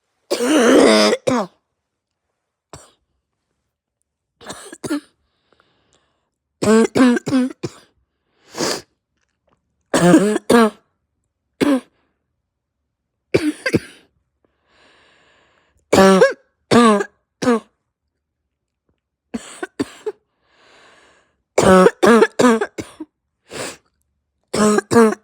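A person coughing hard in about a dozen bursts of harsh, barking coughs, often several in quick succession, with short gaps and faint breaths between. This is a chest-cold cough, with a raw, sore throat and a heavy chest.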